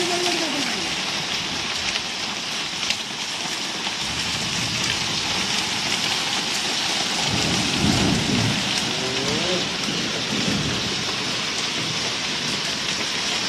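Heavy rain and hail pouring down on the street and roofs, a steady dense hiss, with a low rumble of thunder swelling about halfway through.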